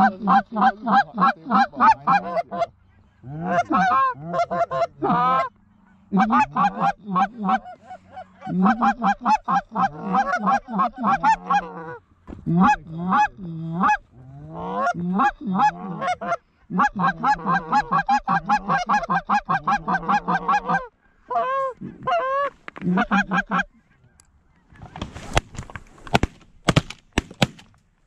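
Canada goose calls blown by the hunters in the blinds: long, fast runs of honks and clucks, several notes a second, broken by short pauses, working a flock of geese. Sharp knocks near the end.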